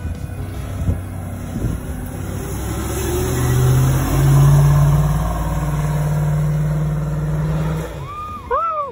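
Engine of a lifted full-size Chevrolet SUV pulling under load as it climbs a steep dirt-and-gravel hill, its note stepping up slightly in pitch about three seconds in and then holding steady. Two brief high rising-and-falling squeals near the end.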